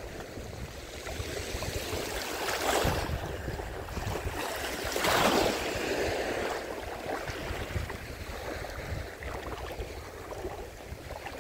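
Small sea waves lapping and washing in the shallows of a pebbly beach, with two louder washes about three and five seconds in, over a low rumble of wind on the microphone.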